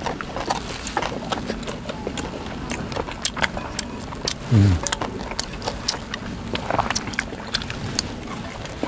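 Tableware clicking and tapping as people eat, with many small sharp ticks of chopsticks and dishes. About four and a half seconds in comes one brief low hum that falls in pitch, the loudest sound here.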